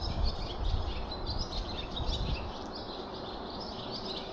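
Small birds chirping all around in many short, overlapping chirps. A low rumble, like wind on the microphone, dies away about halfway through.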